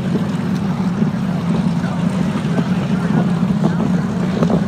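A P-38 Lightning's twin Allison V-12 piston engines in flight, giving a steady low drone, with wind buffeting the microphone.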